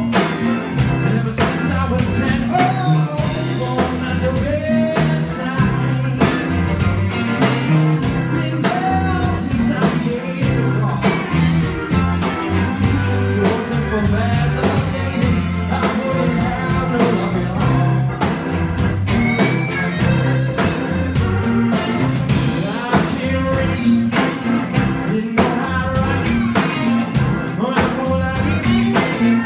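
Live blues band playing a steady groove: electric guitar, saxophone, organ and electric bass over a drum kit.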